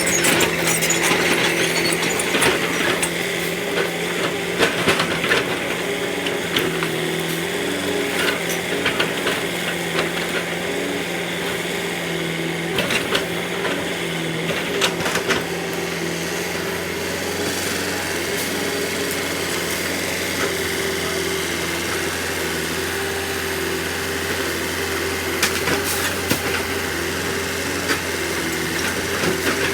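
Excavator engine running steadily, its pitch stepping up and down several times as it works, with scattered clanks and knocks.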